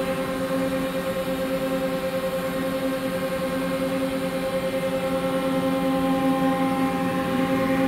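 1997 Makino A55 horizontal machining center standing powered up but idle, no program running: a steady machine hum with several steady tones.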